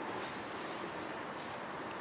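Steady background hiss of a covered station platform beside a stopped train, with no distinct events.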